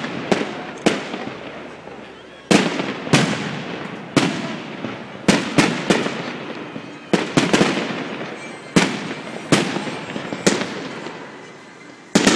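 Aerial firework shells bursting in an irregular series of sharp bangs, about one to three a second, each trailing off over about a second.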